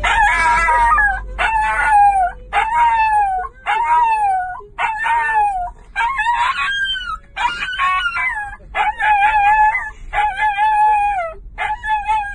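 A small dog howling in a quick series of short, wavering calls, about one a second, each dropping in pitch at its end: an excited greeting for its owner who has just come home.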